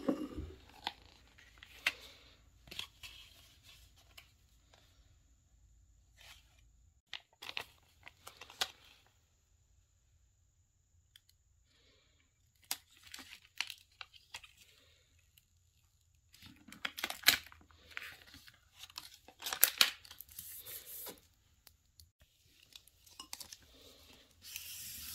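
Cricut transfer tape being peeled from its gridded backing sheet in short crackly tearing rasps, with plastic film crinkling as it is handled. Near the end, a plastic scraper rubs steadily over the tape to burnish it onto the vinyl.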